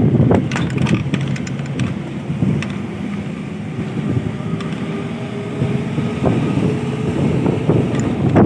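A bus running along a mountain road, its engine and road rumble steady and loud, with wind buffeting the microphone held at an open window. Scattered knocks and rattles come and go, thickest at the start and near the end.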